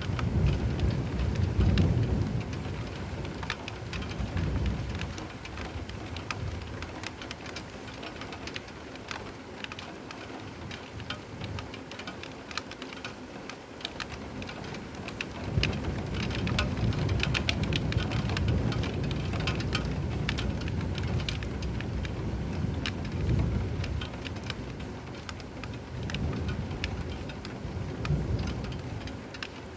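Steady rain falling, with many small sharp drop ticks, and low rolling thunder rumbling in the first few seconds and again through most of the second half.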